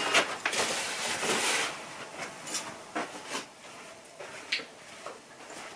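Handling of packaging and parts: a rustle for about the first second and a half, then a few light knocks and clicks spaced apart.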